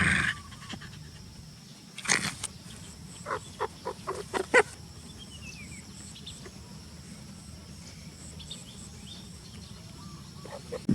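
Outdoor background with a few short animal calls, a run of five or six quick calls about three to four and a half seconds in, and a sharp cluster of clicks just before them.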